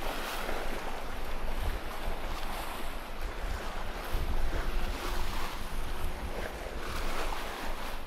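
Strong wind buffeting the microphone over the rush and splash of rough sea breaking past the hull of a sailing yacht driven hard in a fresh breeze. The water noise comes in repeated surges as waves hit the bow.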